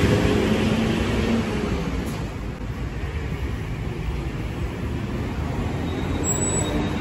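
A city bus's engine running close by at a bus stop, with street traffic around it: a steady low rumble and noise.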